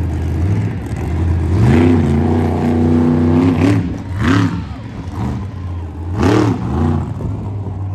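Monster truck engine revving hard three times, each rev a rising then falling pitch over a steady low engine rumble, as the truck climbs and jumps a pile of crushed cars.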